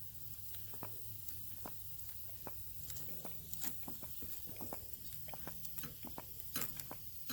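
Primer bulb of a Homelite 3514 chainsaw being pressed over and over to prime the carburettor: faint, soft clicks at about two or three a second.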